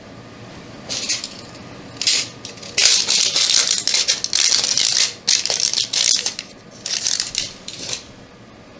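Crinkling, rattling handling noise in a series of irregular bursts, starting about a second in, densest in the middle and ending near the end.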